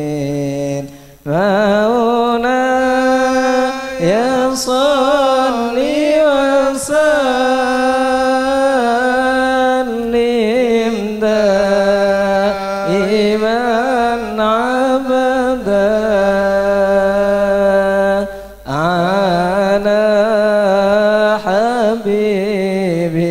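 A solo voice chanting a slow, ornamented melody in long held notes with wavering pitch. It breaks off briefly about a second in and again near the end.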